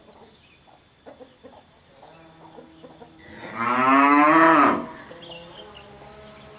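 A sick cow moos once about halfway through: a single loud call of about a second and a half that rises and then falls in pitch, with an odd quality that the owner puts down to the illness.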